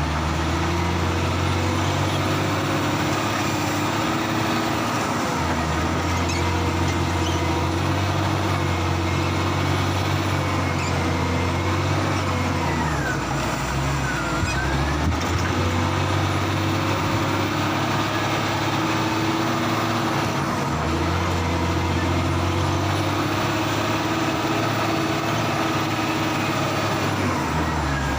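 Heavy diesel engines of a wheel loader and a logging truck running steadily while logs are unloaded. The engine note drops and rises again every several seconds as the machine works.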